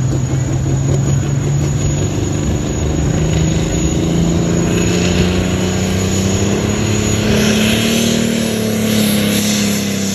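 Diesel pulling tractor's engine running hard at the start of a pull, its pitch climbing steadily over several seconds as it throttles up under load, then easing slightly near the end.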